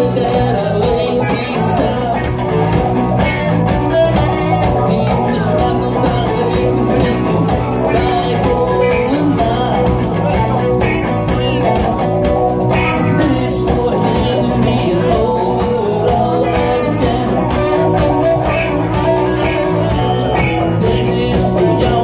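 A rock band playing live: electric guitars, bass guitar, keyboard and drums, with a man singing into a microphone over the band.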